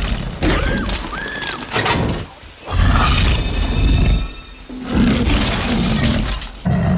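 Dramatic music with dinosaur roar sound effects laid over it: several loud, deep roars in separate bursts, with a pair of arching screeches about a second in.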